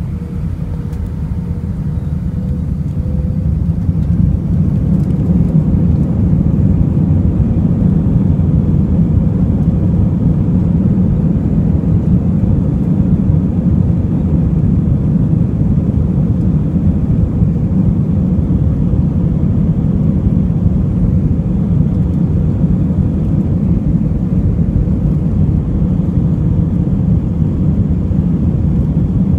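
Airbus A319 jet engines and runway rumble heard inside the cabin over the wing, as the airliner rolls along the runway. The noise grows over the first few seconds and then holds at a steady, loud, deep rush.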